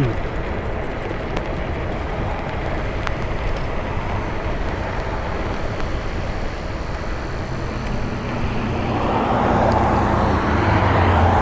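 Steady rushing road and wind noise from riding a bicycle in traffic. A motor vehicle comes up behind over the last few seconds, its engine hum and tyre noise getting louder.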